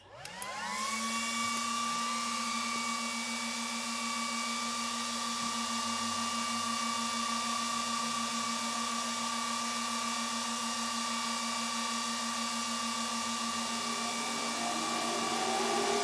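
Three Obelisk SC1 crypto-mining units and their power supplies powering up: the cooling fans spin up within about a second, rising in pitch, then settle into a steady loud whir with a low hum and a higher whine. Near the end a second motor starts up, rising in pitch.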